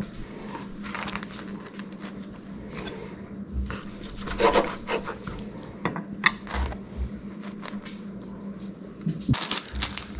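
Kitchen knife scraping and tapping on a wooden cutting board while bread and chicken are handled, with a few sharper knocks against the board, over a steady low hum.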